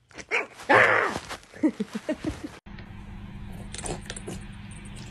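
Short voice-like cries and groans at first. From about halfway through, a plastic pet water fountain runs: its pump gives a steady low hum over a trickle of water, with a few light ticks of a cat lapping.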